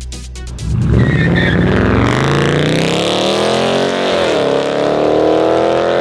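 Dodge Durango R/T's 5.7 Hemi V8, fitted with an aFe cold air intake, accelerating hard: the engine note climbs steadily, drops briefly at a gear change about four and a half seconds in, then climbs again. An electronic music beat plays in the first second before the engine comes in loud.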